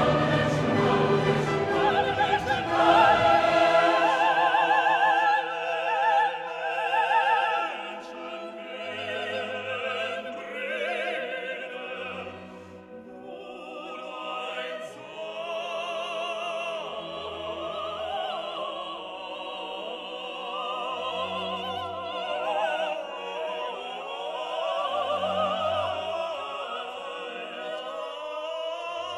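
Background music: an operatic classical piece, a singing voice with vibrato over orchestral accompaniment, louder for the first few seconds and then softer.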